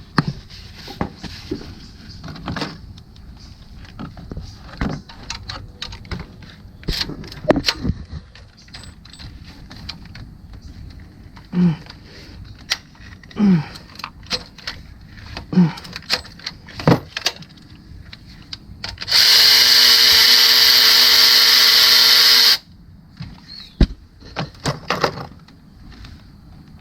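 A power tool runs steadily for about three and a half seconds, about two-thirds of the way through, loosening the exhaust cam phaser bolt on a 3.6L V6. Scattered metal clinks and knocks of hand tools and parts come before and after it.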